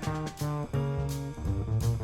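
Background music: a guitar-led jazzy instrumental with a bass line and drums.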